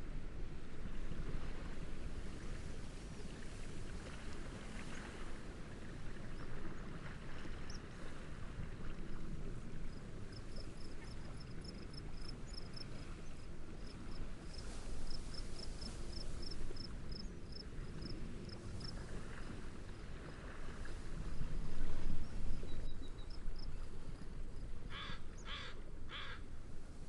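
Steady wind and gentle waves, swelling about two-thirds of the way in. A high, evenly pulsed chirping runs through the middle, and three short, harsh bird calls come near the end.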